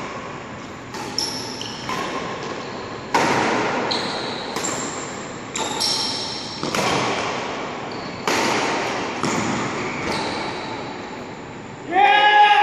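Badminton rally: rackets striking the shuttlecock roughly once a second, each hit a sharp crack that echoes in a large hall, with short high squeaks between some hits. Near the end a loud, pitched shout cuts in.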